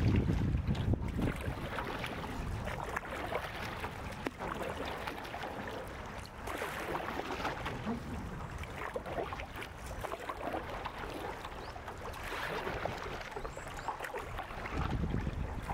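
A wooden canoe paddle making forward strokes through river water, crossed over to the off side, with water splashing and rushing along the canoe. Wind buffets the microphone near the start and end.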